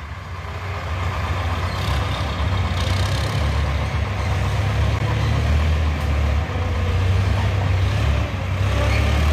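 Diesel farm tractor engine running under load as it reverses a trailer heaped with soil, a steady low rumble that grows louder over the first few seconds as it comes closer.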